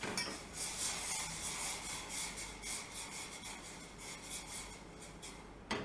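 A metal spoon stirring and scraping around the inside of a small stainless steel saucepan of honey and vinegar, in quick even strokes about four a second that fade out near the end.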